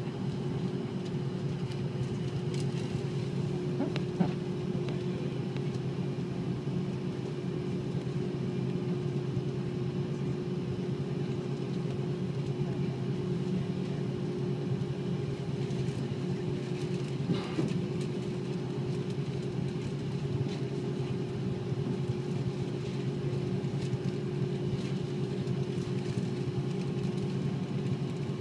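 Airliner cabin noise on the ground: a steady drone of the jet engines at low thrust and the cabin air, with two light knocks, one about four seconds in and one past halfway.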